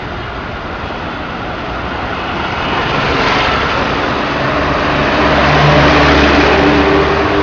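Street traffic: a steady rush of engines and tyres that swells about three seconds in, with an engine's low drone strongest near the end.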